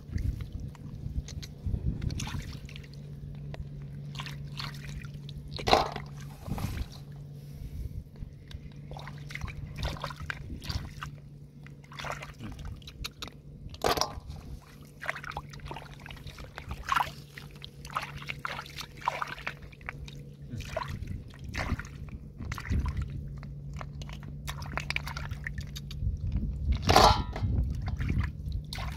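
Hands splashing and sloshing in shallow muddy water while picking out snails, with irregular small clicks and a few sharper knocks as snails are dropped into a metal basin. A steady low hum runs underneath.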